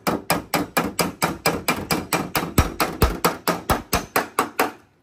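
Metal hammer beating on a car door's sheet-metal panel to work out a dent. The blows are quick and even, about five a second, and stop just before the end.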